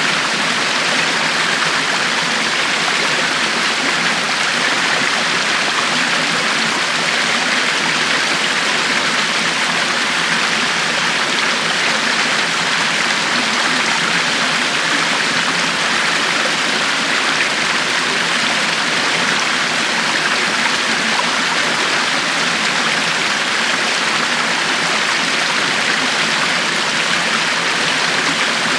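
River water flowing steadily over rocks, an even rushing and babbling with no change.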